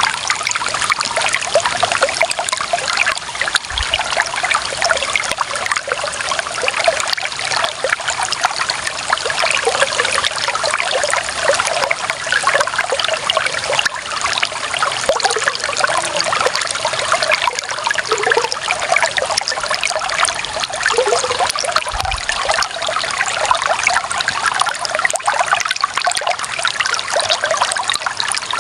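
Clear water running and trickling steadily, with a busy, bubbling splash.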